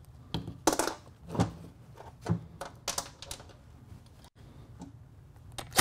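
Scattered light metal clicks and knocks, about half a dozen over several seconds, from a cordless drill's socket and clutch bolts being handled against an aluminium motorcycle clutch assembly between bolt removals.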